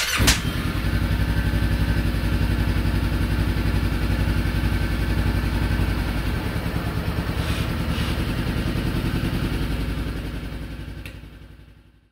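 Motorcycle engine running with a steady, even firing pulse, fading out over the last two seconds.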